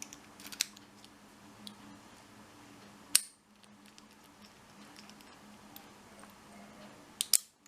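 American Lock 5100 series padlock being worked with its key: small metal clicks of the key in the lock, a sharp click about three seconds in as the shackle springs open, then a quick double snap near the end as the shackle is pushed shut and locks.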